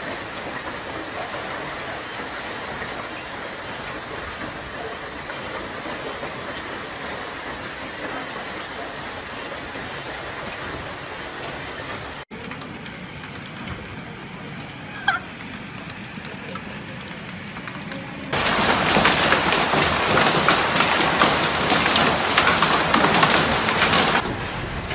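Heavy storm downpour hissing steadily. It changes abruptly twice: quieter about 12 s in, with a brief high squeak near 15 s, then a much louder, denser downpour from about 18 s that cuts off suddenly near the end.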